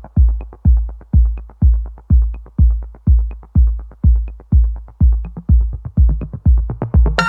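Electronic music: a heavy kick drum beating about twice a second, with a light tick between the beats. A fuller synth layer comes in near the end.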